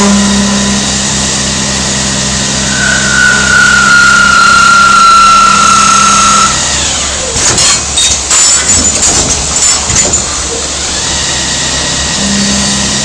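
Machine tool, likely the CNC polygon lathe, running with a steady hum. A high whine joins about three seconds in and stops with the hum at about six and a half seconds. Several seconds of irregular metallic clattering and knocks follow, and the hum starts again near the end.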